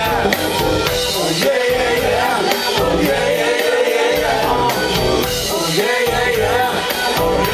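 Live band playing amplified music, a voice singing over electric guitars and a steady drum beat.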